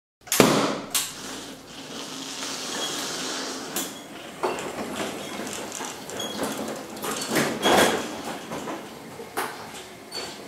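A latex balloon popped with a knife: one sharp bang about half a second in, then a smaller knock. After it come scattered knocks, clatter and rustling.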